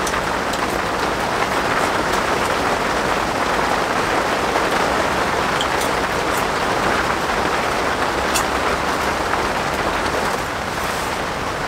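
Steady rain falling on the polycotton canvas of a Tent-Mark Circus TC DX tent, heard from inside as an even patter with a few brief clicks.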